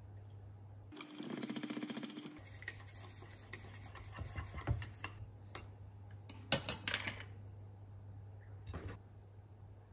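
A small utensil stirring dressing in a small ceramic cup, clinking and scraping against the sides, with a burst of sharp clinks about two-thirds of the way through. Near the start there is a rapid, dense rattle lasting about a second and a half.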